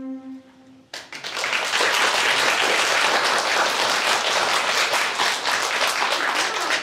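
A held electronic-keyboard note dies away, then about a second in an audience breaks into applause that runs on steadily.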